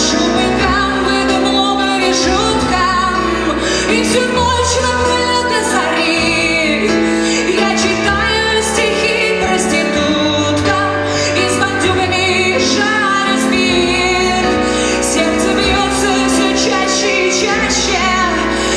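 Background music: a woman singing over instrumental accompaniment with a steady beat.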